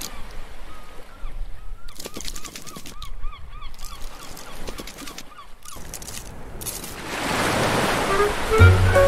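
Cartoon sound effects for an animated intro: clicking with a quick run of small squeaky, honk-like calls, about two or three a second. Then a swelling surf-like whoosh, with music coming in near the end.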